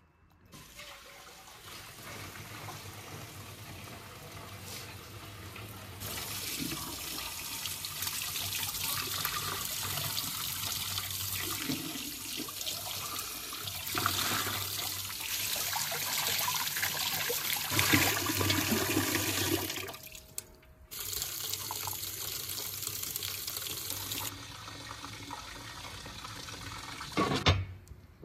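Water running from a tap into a sink. The stream gets stronger about six seconds in, stops briefly around twenty seconds, then runs again and eases off a few seconds later. A sharp knock comes near the end.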